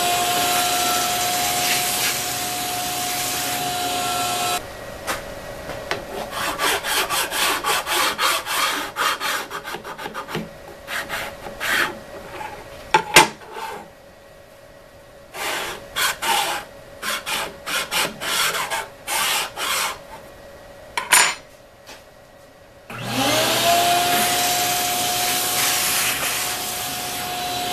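A shop vacuum running with a steady whine, cutting off about four and a half seconds in. Then a long run of hand strokes of a flat file rubbing along the edge of the MDF fixture top, quick in places and spaced out in others. Near the end the shop vacuum starts again, its whine rising as the motor spins up.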